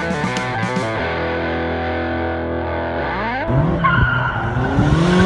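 Electric guitar music, then about three and a half seconds in a car engine revs up with tyres squealing over it.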